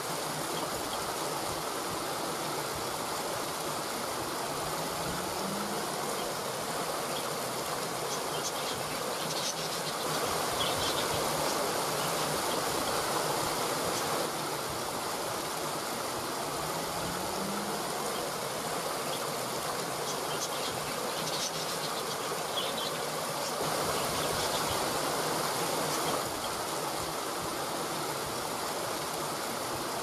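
Steady rushing of water cascading over rocks in a small stream.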